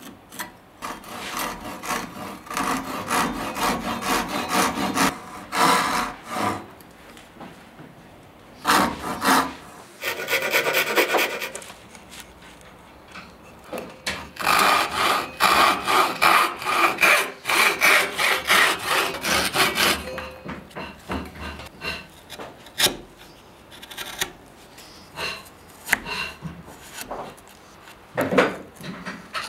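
Fine-toothed handsaw cutting softwood, in several runs of quick rasping strokes with short pauses between them. Later the sawing gives way to scattered knocks and short scrapes, with a chisel paring into the wood near the end.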